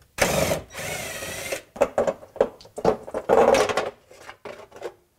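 Ryobi cordless power tool running with a socket for about a second and a half, with one short break, spinning off a small stamped sheet-metal nut on the exhaust heat shield. A series of sharp knocks and scrapes follows as the metal heat shield is pulled down by hand.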